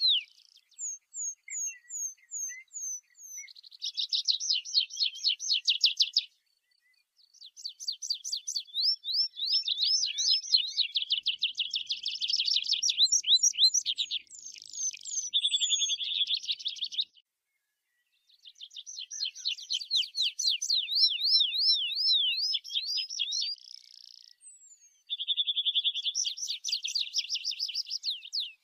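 Tree pipit singing: phrases of fast trills and runs of repeated notes, some slurring downward, one after another with short pauses between them.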